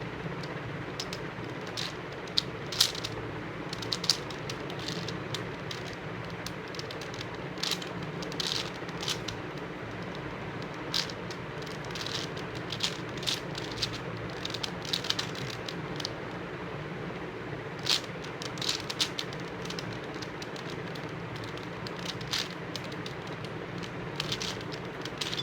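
Plastic 5x5 Rubik's cube being turned by hand, its layers clicking and clacking in quick irregular runs over a steady background hiss.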